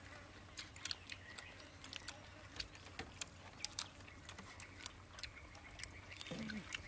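Quiet eating sounds: chopsticks and spoons clicking lightly and irregularly against small bowls, with chewing. A brief murmur from one of the diners comes about six seconds in.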